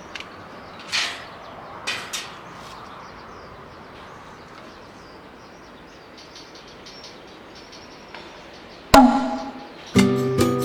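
Low steady background noise with a few sharp knocks, one about a second in and two near two seconds in. About nine seconds in comes a louder strike that rings on with a pitched tone. Acoustic guitar music starts near the end.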